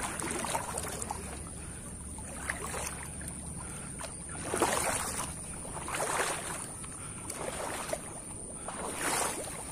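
Footsteps and rustling of leaves and undergrowth as someone walks through a bamboo thicket, in a few short swishing bursts around the middle and near the end, over a steady high-pitched hiss and a low wind rumble at first.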